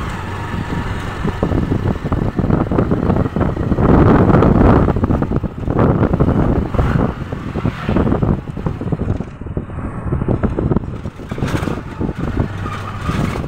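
Motor vehicle engine and road noise heard from on board while riding along, with wind buffeting the microphone in gusts.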